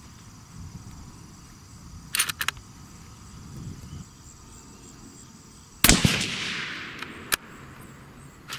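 A single shot from a suppressed Savage Ultralite rifle in .280 Ackley Improved about six seconds in: a sudden report whose echo fades over a second or so. Two short sharp clicks come a few seconds before it, and another sharp click comes just over a second after.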